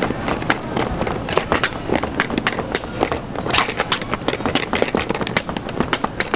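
A hand-held utensil beating a thick whipped mixture in an aluminium stockpot, knocking and scraping against the pot's sides in quick, irregular strokes, several a second.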